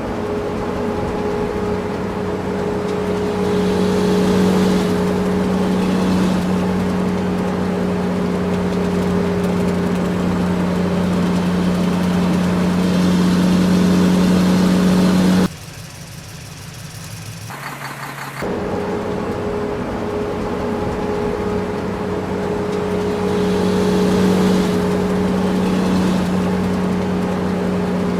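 Diesel engine of heavy earthmoving machinery running under load with a steady low hum, swelling several times as it works. About halfway through the sound drops abruptly to a quieter stretch for a few seconds, then comes back at full level.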